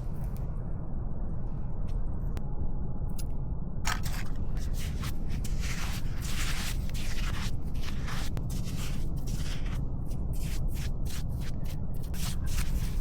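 Repeated short scraping strokes, irregular at first and quicker near the end, starting about four seconds in over a steady low rumble.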